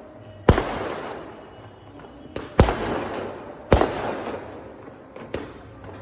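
A series of sharp, loud bangs, four or five about one to two seconds apart, each trailing off in a fading rush of noise over about a second.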